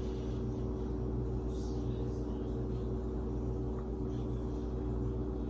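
A steady low machine hum with several pitches held constant under faint room noise; the dipping itself makes no distinct sound.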